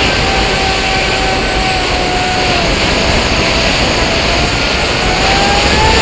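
Small remote-controlled aircraft heard from its own onboard camera: the whine of its motor over rushing air noise. The whine dips in pitch about two and a half seconds in and climbs again near the end as the throttle changes.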